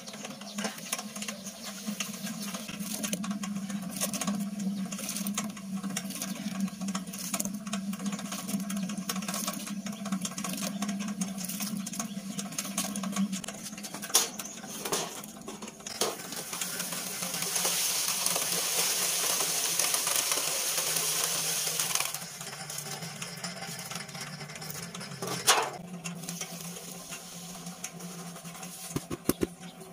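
Small homemade cement mixer, a gas-bottle drum driven by a car wiper motor, running with a steady hum while its load rattles and churns. Midway there is a rush of pouring water for about five seconds, and a few sharp clunks come through.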